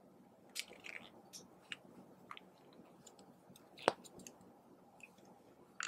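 Scattered faint wet clicks and small pops from clear slime as a thin stream of purple liquid is drizzled onto it from a squeeze nozzle. One sharper click comes about four seconds in and another near the end.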